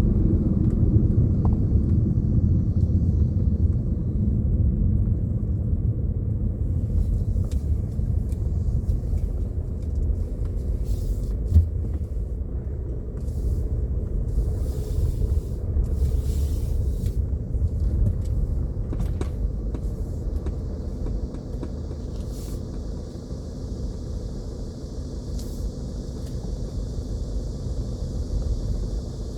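Low, steady rumble of a car's engine and tyres heard from inside the cabin while driving, with a single sharp click about twelve seconds in.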